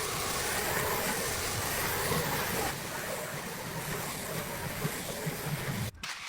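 Pressure washer spraying, a steady hiss of the water jet striking a surface. It breaks off briefly near the end.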